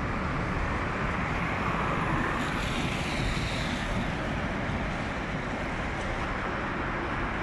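Steady road traffic noise, an even hum of passing vehicles that swells slightly a couple of seconds in.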